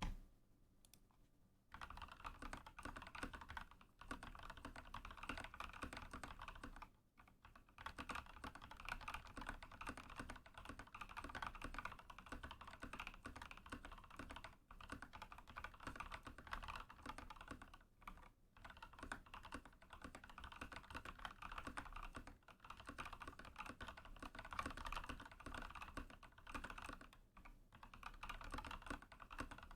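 Steady typing on a Rama KARA custom mechanical keyboard with lubed Linear Thock Purple Boba linear switches, a polycarbonate plate and PBT keycaps: a dense run of keystrokes starting about two seconds in, with a few brief pauses, the longest about seven seconds in.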